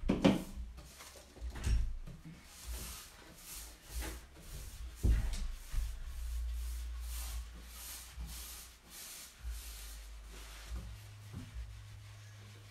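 Repeated rubbing strokes as white glaze is worked over a painted cutlery box, with a few dull knocks as the box is handled on the table.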